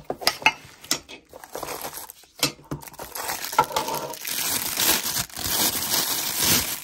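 Cardboard watch box handled and opened with a few light knocks, then a plastic bag crinkling continuously for the last few seconds as the watch inside is unwrapped.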